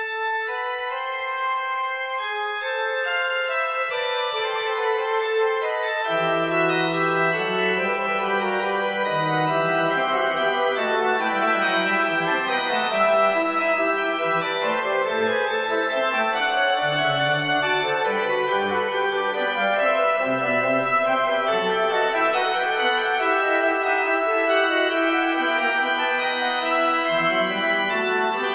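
Organ and winds playing a prelude and fugue: one melodic line at first, a lower voice entering about six seconds in, then several voices interweaving in sustained notes.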